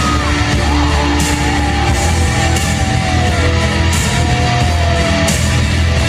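Live rock band playing loudly in a large hall: a sustained lead line slides between held notes over a heavy, steady bass, with bright accents about every second and a half.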